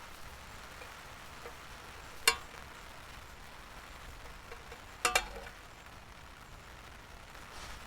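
Scrambled eggs sizzling softly in a pan, a steady frying hiss. There is a sharp click about two seconds in and a quick double click about five seconds in.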